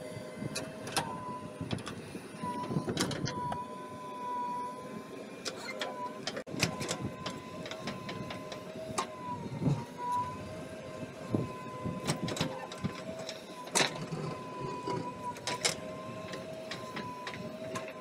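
JCB 3DX backhoe loader digging with its rear bucket: the engine and hydraulics run with a steady whine while the bucket scrapes and knocks against stony soil, giving many sharp clicks and knocks.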